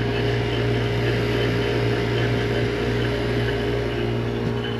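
Fieldpiece HVAC vacuum pump running steadily as it evacuates an air-conditioning system, a constant motor hum.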